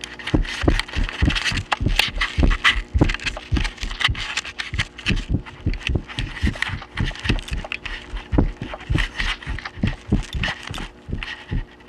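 Fast footsteps running on carpet, about three heavy footfalls a second, with hard, rushed breathing over a steady electrical hum.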